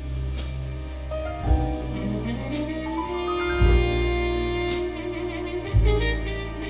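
Music: a melody of held notes over a steady beat of about one strike a second.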